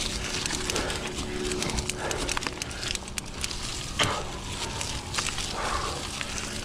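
Mountain bike in motion on a dirt trail: tyre and drivetrain noise, with the rider breathing hard in heavy, regular breaths, and a single sharp knock about four seconds in.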